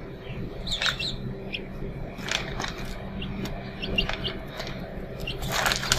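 Tiny kitten making short high-pitched squeaks and mews, over a low steady hum, with a burst of rustling near the end.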